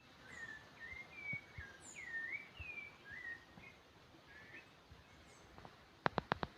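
Birds singing short whistled, gliding phrases, followed near the end by four quick, sharp clicks in a row.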